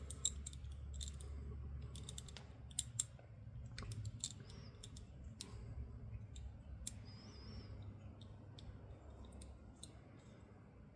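Old Plumb 1/4-inch drive ratchet being worked by hand, its pawl giving faint, irregular clicks, some in quick runs. The worn mechanism ratchets in this direction after reassembly but not the other.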